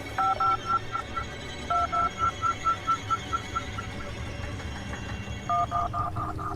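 Phone keypad beeps as a number is dialled: three key presses, each a short two-tone beep followed by fading echoed repeats, with a low steady rumble underneath.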